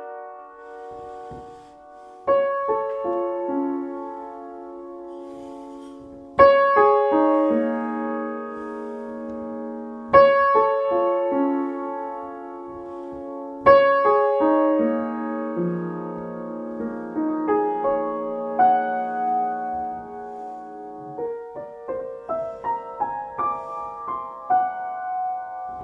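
Solo piano playing a free-tonal improvisation. Loud chords are struck about every four seconds and left to ring and fade while softer notes step downward beneath them. Quicker, lighter notes follow near the end.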